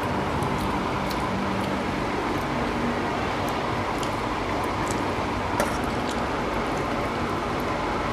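Eating by hand: fingers mixing rice and curry on steel plates and mouths chewing, heard as scattered faint wet clicks and smacks. Under it runs a steady background noise that is the loudest thing throughout.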